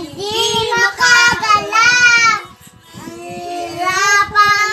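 A young child singing: two phrases of held, sliding notes, with a short break about two and a half seconds in.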